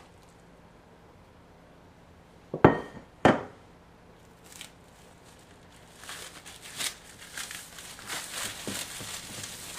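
Two sharp knocks with a short ring, about half a second apart, near three seconds in. Then, from about six seconds in, plastic wrap crinkling steadily as it is folded and rolled around a log of choux pastry dough.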